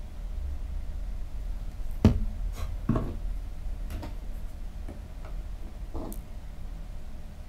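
A few light clicks and taps from small tools and parts being handled at a workbench. The sharpest comes about two seconds in, with a second one just after, over a low steady hum.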